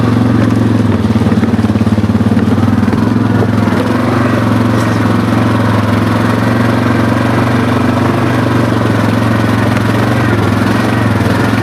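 ATV engine running at a steady, even pitch while the machine rides along.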